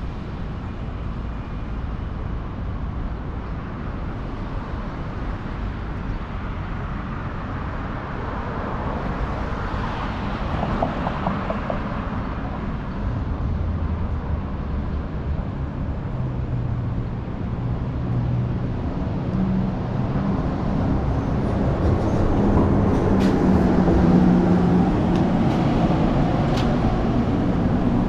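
City street traffic: a steady hum of passing vehicles, with a vehicle engine sounding closer and louder in the second half.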